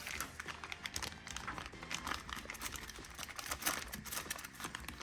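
Small bolts and packaging being handled: rapid, irregular small clicks and crinkling.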